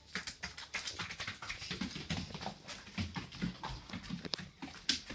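A dog playing rough with a blanket: quick, irregular clicks and scuffles of claws on the floor, mixed with soft thumps and rustling.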